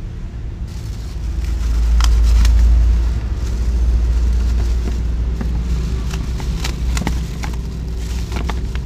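A hand rummages for bagged ice in a plastic bucket, making scattered clicks and knocks over a steady low rumble that swells a couple of seconds in.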